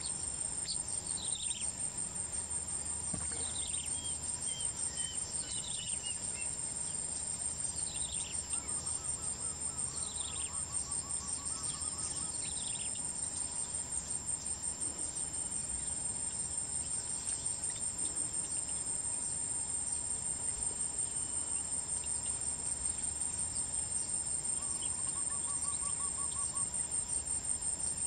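Steady, high-pitched insect chorus, pulsing rapidly without a break. Birds call over it now and then with short falling whistles and a few brief trills.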